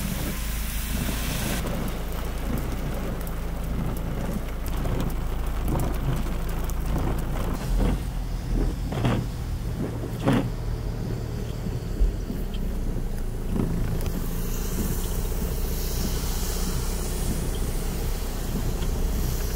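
Car traffic on a rain-flooded road: a steady low vehicle rumble with the hiss of tyres through water, and a few short knocks about halfway through.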